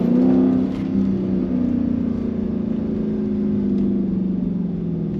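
Dodge Charger widebody's V8 engine running at a steady low engine speed while driving, its pitch easing slowly downward as the car coasts.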